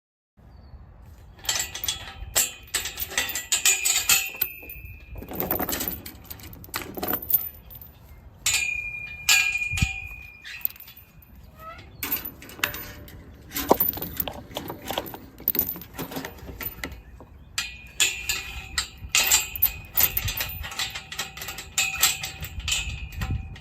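Clattering and scraping of barn chore work, from tools and equipment being handled while stalls are made ready: bursts of knocks and scrapes, with a high thin squeak held for a second or more several times.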